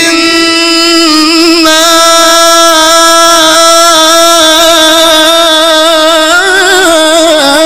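A male Quran reciter (qari) recites in the melodic mujawwad style through a microphone, holding one long note. He wavers in ornaments twice, a few seconds in and again near the end.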